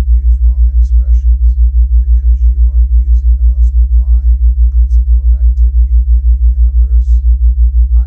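A loud, very low tone pulsing evenly about six times a second, a theta-wave isochronic tone. A faint voice speaks quietly underneath it, as in a subliminal recording.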